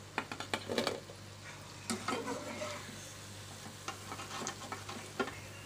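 Onion pakoras deep-frying in hot oil in a kadhai, with a steady sizzle. A slotted steel spatula scrapes and clinks against the pan in several short clusters as the fried pakoras are scooped out.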